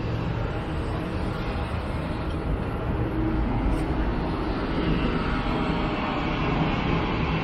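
Jet aircraft engines running on the airfield, heard as a steady low noise that grows a little louder about halfway through.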